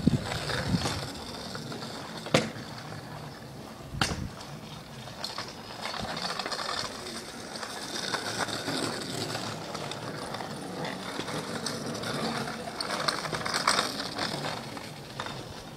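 Kick scooter wheels rolling over rough asphalt, with a few sharp clacks in the first four seconds.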